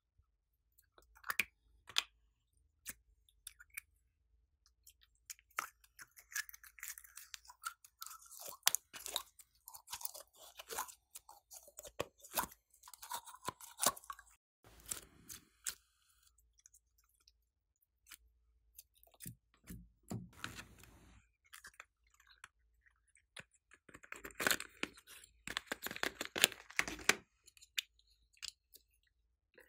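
Hands working slime and handling small plastic slime jars and their lids: sticky, crackly squishing noises with many scattered sharp clicks. The sounds come in bunches, busiest in the middle and again near the end.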